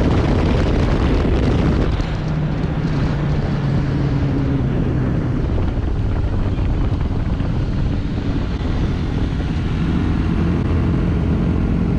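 Motorcycle engine running steadily while riding, mixed with heavy wind rush over the rider's helmet-mounted microphone.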